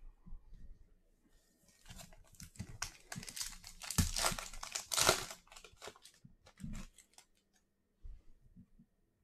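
A trading-card pack wrapper being torn open and crinkled, loudest about four to five seconds in, followed by light clicks and rustles of cards being handled.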